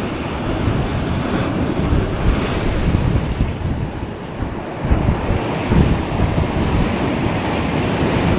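Wind buffeting the microphone, gusting unevenly over the wash of sea water.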